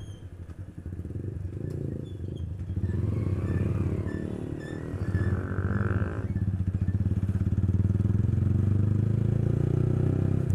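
Yamaha 155 cc single-cylinder motorcycle engine with a loud aftermarket full-system exhaust, running at low speed. It gets louder about three seconds in and then holds steady.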